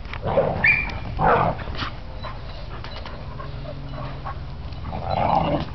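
Two dogs play-fighting, with a few short barks and whines that come about half a second in, just over a second in and again near the end.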